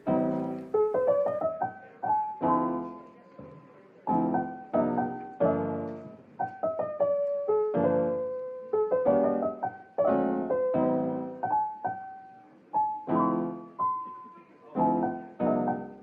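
Background piano music: a gentle melody over struck chords, each note ringing and fading, starting abruptly.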